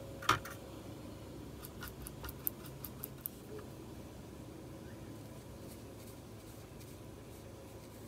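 A sharp click, then a quick run of light clicks and taps over about a second and a half, as a watercolour brush is worked in the paint pan set to pick up paint; a faint steady hum underneath.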